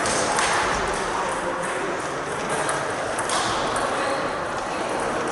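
Table tennis balls clicking on tables and bats, over a background murmur of voices.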